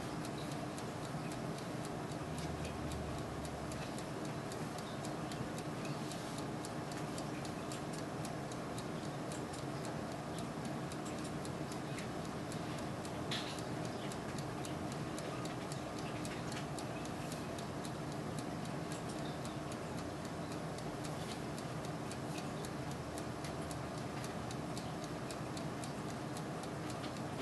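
Turbo convection oven running: a steady fan hum with a dense, light ticking and crackling over it, and one slightly sharper click about halfway through.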